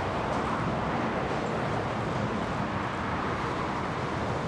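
Boeing 747-400's four jet engines running at approach power as it descends over the runway to land: a steady rushing noise with no change in level.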